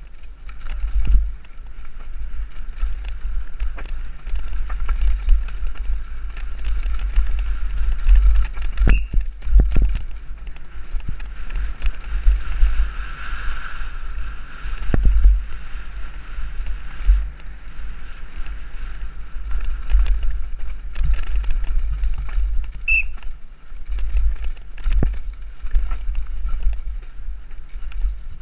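Mountain bike descending a rough dirt trail, recorded from a helmet camera: heavy wind buffeting on the microphone, with frequent sharp knocks and clattering as the bike hits bumps and roots.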